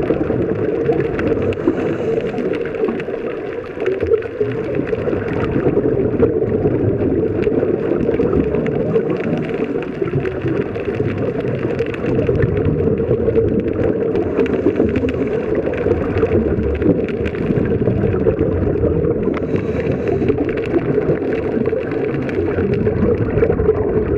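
Steady muffled underwater rushing heard through a camera's waterproof housing, with scuba divers' regulator exhaust bubbles gurgling now and then.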